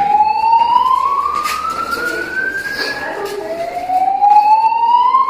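Building fire alarm sounding an evacuation whoop, the signal to leave the building: a loud tone rising slowly over about three seconds, then dropping low and rising again just past halfway.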